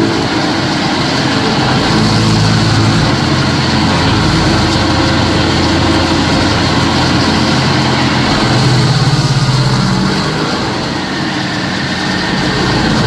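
Stump grinder running loud and steady, its engine note shifting in pitch a few times.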